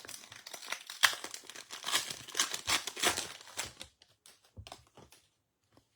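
Wrapper of a baseball trading card pack being torn open and crinkled, with dense crackling for about four seconds, then a few light ticks as the cards come out.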